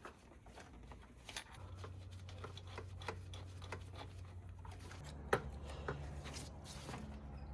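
Faint, scattered small metallic clicks and taps as a 14 mm starter mounting bolt is handled and threaded in by hand, with one sharper tick about five seconds in, over a faint low hum.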